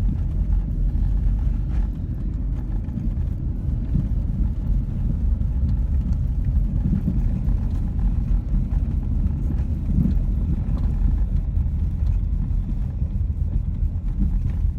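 Car driving steadily on a snow-covered road, heard from inside the cabin: a continuous low rumble of engine and tyre noise.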